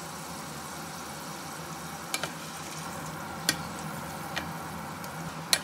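Shrimp sizzling in oil in a frying pan while a wooden spatula stirs them, knocking sharply against the pan a few times.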